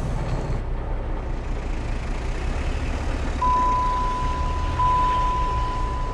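Steady low rumble of a car in motion heard from inside the cabin. About three and a half seconds in, a single steady high-pitched tone starts and holds.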